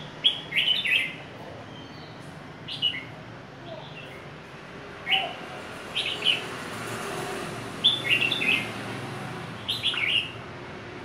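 Caged red-whiskered bulbul, a bird just through its moult, singing short, bright warbled phrases, about six of them, one every second or two.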